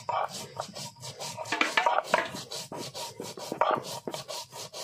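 Stone roller (nora) grinding cumin seeds on a flat grinding stone (sil): quick, uneven rasping strokes of stone scraping over stone and crushed seed.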